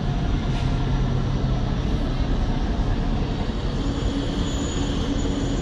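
A passenger train pulling out of a station, a steady rolling rumble of wheels on rails. A low hum fades out early, and a steadier, higher hum comes in near the end.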